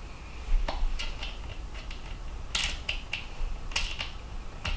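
Small screw and nut clicking and tapping against a clear acrylic panel as they are fitted together by hand: about ten irregular sharp clicks.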